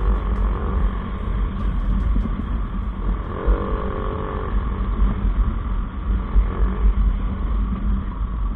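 Motorcycle running at road speed, recorded from the bike itself, with a heavy gusting rumble of wind on the microphone. A short pitched tone sounds for about a second, some three and a half seconds in.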